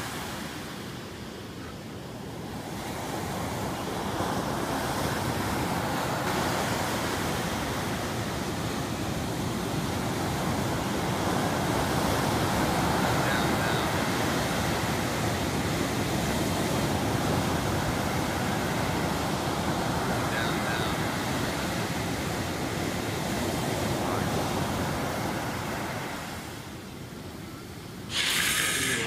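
Ocean surf washing onto a beach: a steady rushing noise that swells and ebbs, fading away a couple of seconds before the end.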